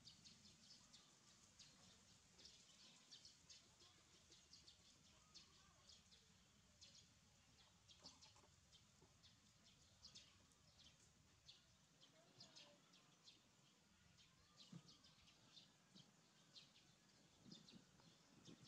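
Faint chirping of small birds: short, high calls coming several times a second.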